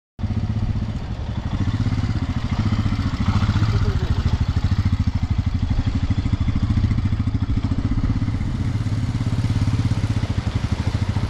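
Motorcycle engine running steadily, with a fast, even pulsing from its firing.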